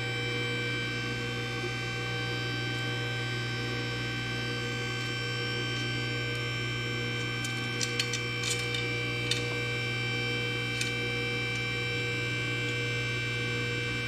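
Steady electric hum of the hydraulic tube bender's pump motor running, with a few light metallic clicks from handling the steel tube partway through.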